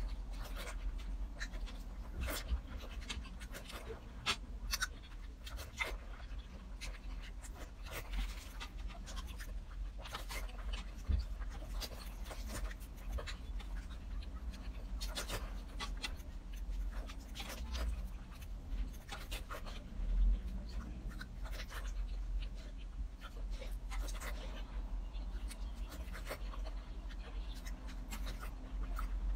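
Close-up eating sounds: wet chewing, sucking and lip smacking on soft, fatty glazed pork belly, with many small irregular mouth clicks.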